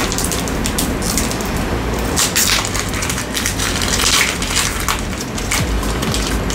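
Foil wrapper of a Pokémon TCG Silver Tempest booster pack being crinkled and torn open by hand, with a run of crackles that is loudest about two and a half and four seconds in.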